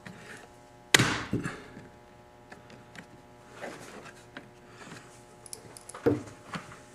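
Hand pressing and tapping on a plastic windshield cowl panel while trying to seat its fasteners into their grommets: one sharp knock about a second in, lighter taps after it, and a dull thud about six seconds in.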